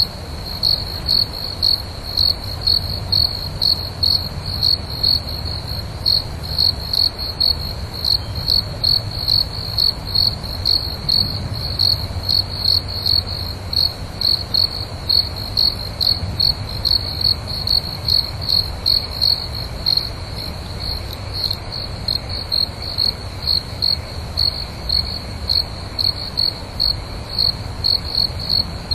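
Crickets chirping in an even rhythm, about two chirps a second at one high pitch, over a low steady rumble.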